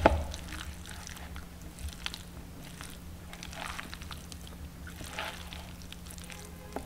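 A spatula stirring and folding a wet, sauce-coated mix of shredded salmon and imitation crab in a bowl: soft squelches and scrapes, with a faint steady hum underneath.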